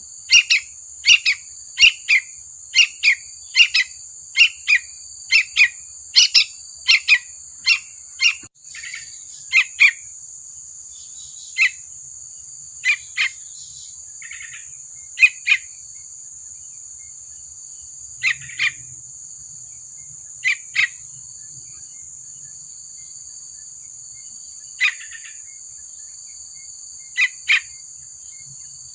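Juvenile yellow-vented bulbul (trucukan) chirping: short calls in quick pairs, about two a second for the first nine seconds, then sparse pairs every couple of seconds. A steady high-pitched drone runs underneath.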